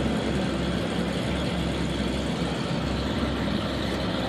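Ferrari F40's twin-turbocharged V8 idling steadily.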